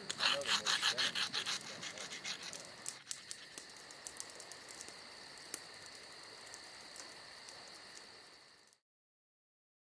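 Chorus of night insects, crickets and katydids. A fast, even rasping pulse sounds for the first few seconds, then settles into a steady high trill. It cuts off suddenly about nine seconds in.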